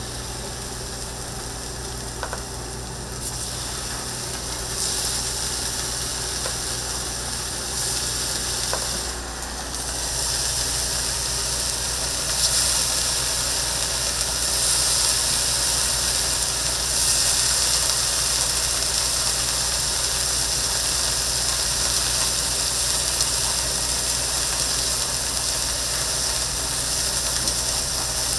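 Food sizzling on a flat-top griddle, a steady hiss that grows louder about five seconds in and again around twelve seconds in, over a steady low hum.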